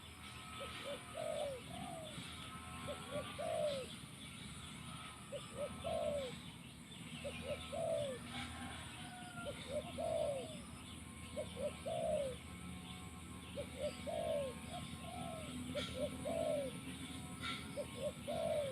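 Spotted dove cooing repeatedly. Each phrase is a couple of short notes and then a longer, arched note, repeated about every two seconds, with faint chirps of other small birds behind it.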